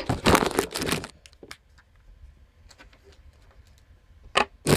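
Handling noise close to the microphone: loud rubbing and rustling for about the first second, a few faint clicks, then another short loud rub near the end.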